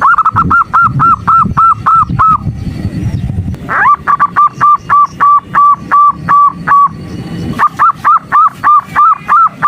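Female zebra dove (perkutut) calling, a lure call for males: three runs of short, evenly repeated notes, about four a second, with brief pauses after about two seconds and near seven seconds, and a rising note leading into the second run.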